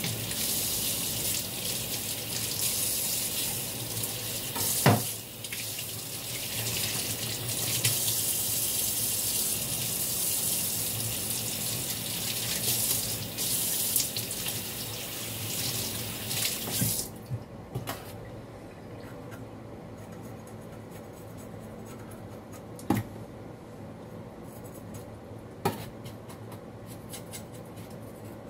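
Kitchen tap running into a sink as something is washed under it, with a sharp knock about five seconds in. The water stops a little past halfway, leaving light clicking and rubbing and a couple of knocks.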